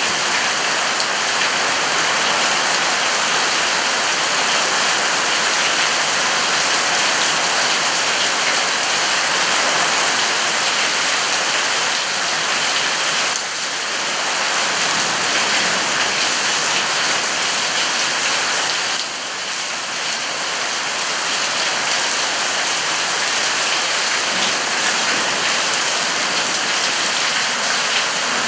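Heavy rain pouring onto a wet brick patio and pool, a dense steady hiss that eases slightly twice.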